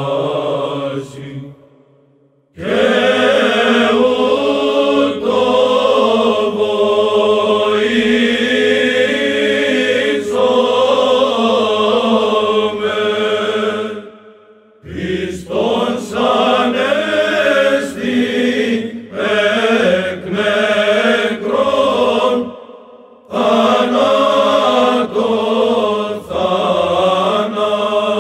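Byzantine Orthodox chant sung by a choir of church chanters: long sung phrases with short pauses between them, about 2 s, 14.5 s and 23 s in.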